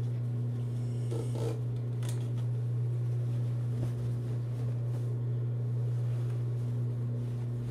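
Steady low hum of an industrial sewing machine's motor running idle, with denim rustling and shifting as the jeans are handled, most about a second or two in.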